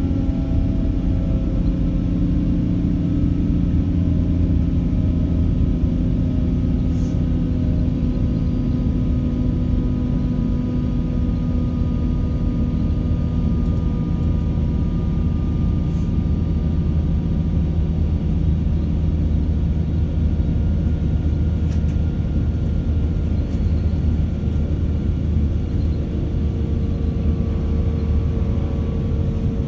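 Class 196 diesel multiple unit's MTU inline-six diesel engine and ZF gearbox running under way, a steady low drone with whining tones that slowly fall in pitch as the train slows between downshifts. A few faint ticks.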